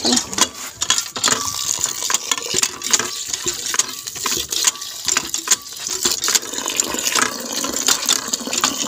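Water pouring and splashing into an aluminium pot of rice as the rice is rinsed and swirled by hand, with small ticks of grains and droplets throughout.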